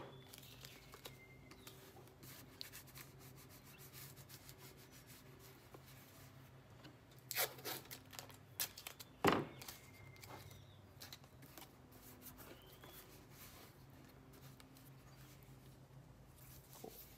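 Faint handling of blue painter's tape: pulled off the roll, torn and rubbed down by hand, in many small crackles with two louder tearing sounds a little past the middle.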